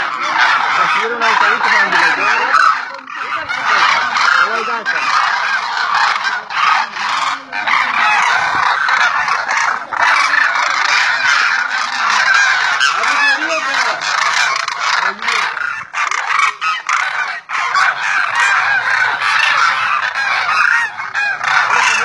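A large flock of demoiselle cranes calling together: a loud, dense, unbroken chorus of many overlapping calls.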